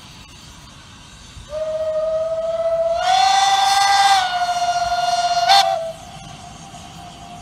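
Steam locomotive whistle blowing one long blast of about four seconds, swelling louder partway through and then cutting off, with a fainter tone lingering afterwards.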